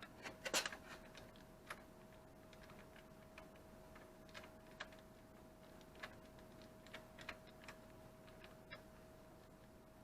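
Irregular light clicks and taps: a quick cluster about half a second in, then single clicks every second or so, over a faint steady tone.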